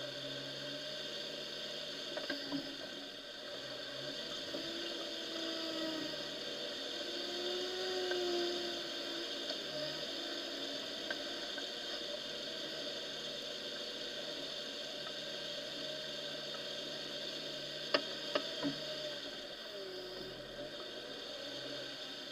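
Off-road vehicle engine running as it drives along a muddy, puddled forest track, its pitch rising and falling with the throttle, with a few sharp knocks near the end.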